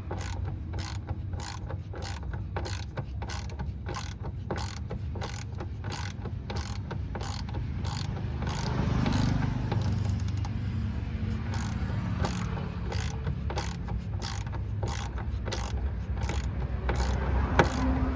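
Ratchet wrench clicking in a steady run of sharp ticks, a few a second, as the mounting bolts of a new plastic-bodied DEF dosing motor module are tightened. A steady low hum sits underneath.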